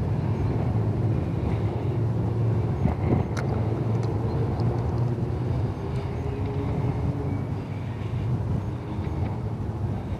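Steady low mechanical rumble with a faint hum running through it, and a couple of faint clicks a little over three seconds in.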